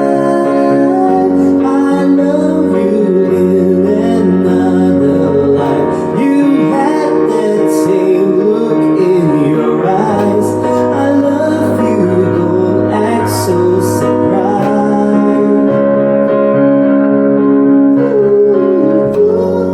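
Music: a voice singing a wavering, gliding melody over sustained electric piano chords.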